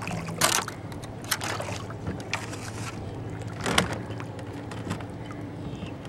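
Water splashing and lapping against a kayak on choppy water, in irregular splashes about a second apart, over a faint steady low hum.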